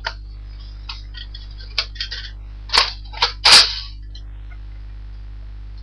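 Hard plastic parts of a Nerf Recon CS-6 dart blaster being handled and fitted together: a string of sharp clicks and knocks over the first few seconds, the loudest a short clattering rattle about three and a half seconds in.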